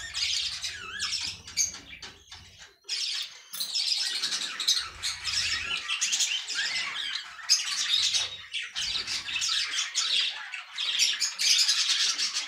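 Budgerigars calling in a near-continuous stream of harsh, rasping chirps and squawks, with brief breaks.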